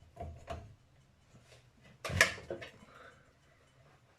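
Knocks and clunks of a tyre lever and tyre-changer tool working against a steel wheel rim while prying the tyre bead over to get it started: a few light taps near the start and one sharp knock about two seconds in.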